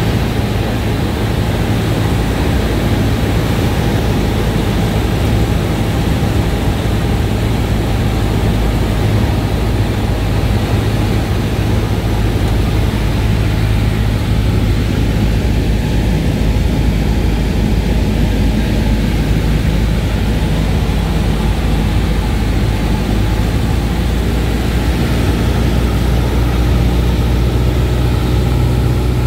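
A Cessna 172's piston engine and propeller running steadily, heard from inside the cabin as a constant loud drone. The engine note changes slightly near the end.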